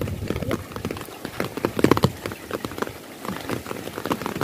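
Heavy rain, with drops striking a surface close by in many quick, irregular ticks over a steady hiss of falling water.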